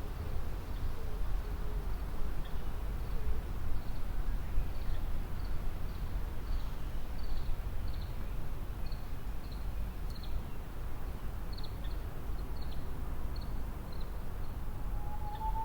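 Wind rushing over the microphone in a forest, with a faint run of short high chirps repeated about twice a second. Near the end a Japanese bush warbler begins its song with a long, low whistled opening note.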